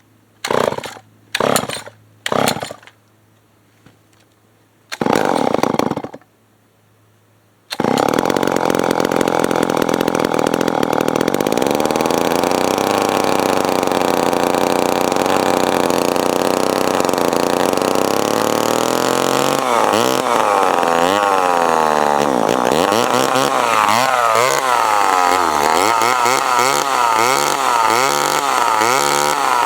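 Remington SL9 two-stroke chainsaw being started: a few short bursts as it is pulled over, then it catches about eight seconds in and runs. From about twenty seconds in its engine speed rises and falls again and again, on a carburetor that the owner thinks may need adjusting.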